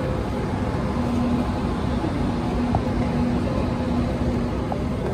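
Train-station ambience: a steady low rumble, with a low hum that keeps breaking off and coming back.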